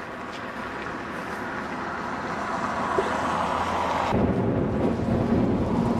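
Outdoor road-traffic noise, a steady hiss that grows louder. About four seconds in it changes suddenly to a louder, deeper rumble of traffic with wind on the microphone.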